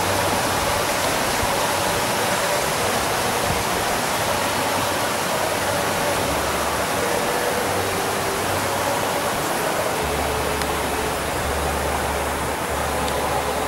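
Steady rushing of running water, an even noise that holds level throughout.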